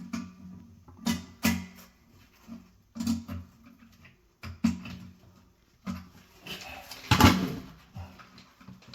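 Irregular knocks and clunks of plastic toilet fill valve parts being handled in the tank as the clip and lock nut are worked off, a few seconds apart, the loudest about seven seconds in.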